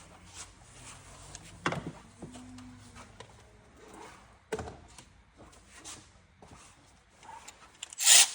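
Scattered knocks and clicks of hand tools on metal during engine disassembly, with a short, loud burst of noise near the end.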